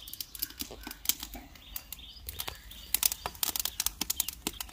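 Dry sticks and twigs crackling and popping as they burn in a wood-fired chulha, the pops irregular and coming more thickly from about three seconds in.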